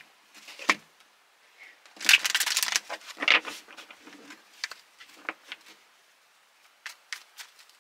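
A deck of tarot cards being shuffled by hand: irregular flicks and slaps of the cards, with a longer dense rustle about two seconds in.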